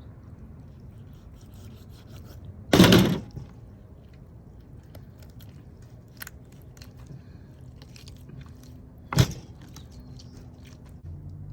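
A knife cutting slits into raw whole chickens on a cutting board: small wet scrapes and clicks, with two louder knocks on the board, one about three seconds in and a sharper one about nine seconds in.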